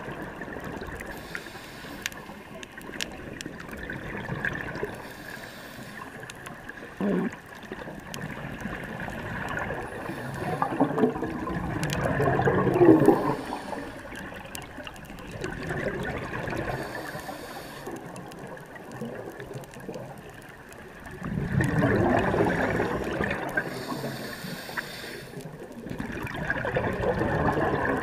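Scuba breathing underwater: exhaled bubbles from a regulator gurgling out in swelling bursts several seconds apart, the strongest about a third of the way in and again past two thirds.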